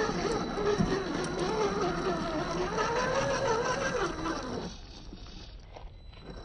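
Electric motor and gearbox of a 1/10 scale RC crawler whining, its pitch rising and falling with the throttle, then cutting off about four and a half seconds in, leaving a quieter rustle.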